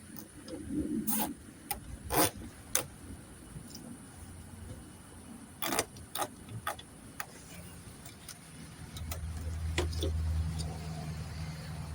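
Scattered sharp clicks and knocks of plastic car-body parts and zip ties being handled. About nine seconds in, a low steady engine hum comes in and runs on.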